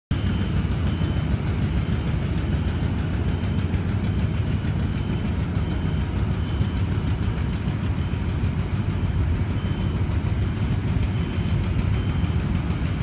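Heavy diesel engine of a mobile crane running steadily, a continuous low drone. Faint short high-pitched tones come and go every second or two over it.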